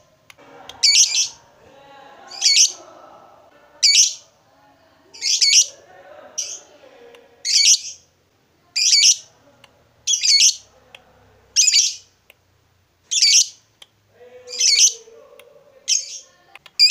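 Fischer's lovebird giving short, shrill, high-pitched calls, about one every second and a half, a dozen in all, with quieter chatter between them.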